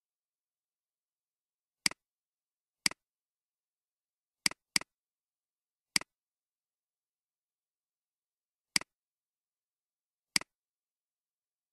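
Computer mouse clicks: seven sharp clicks at uneven intervals, two of them close together like a double-click, each a louder click followed at once by a softer one, as a button is pressed and released.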